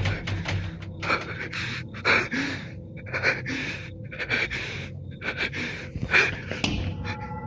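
A person panting: quick, heavy in-and-out breaths close to the microphone, about two a second.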